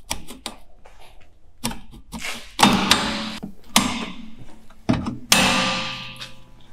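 Steel drum-brake shoes and return springs being levered back into place: a few light metal clicks, then three loud scraping clanks from about two seconds in, each leaving the metal ringing briefly.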